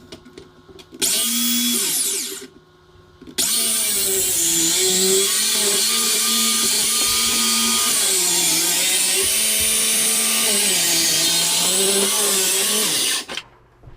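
Circular saw cutting through a countertop for a sink cutout: a short burst of about a second, then after a pause about ten seconds of continuous cutting, its pitch wavering as the blade works through the material. It stops shortly before the end.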